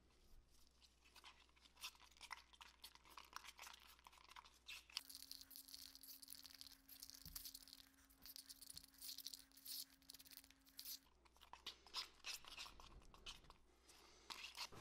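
Faint irregular scraping and clicking of a stir stick against a plastic mixing cup as two-part silicone mold rubber is mixed with its red catalyst.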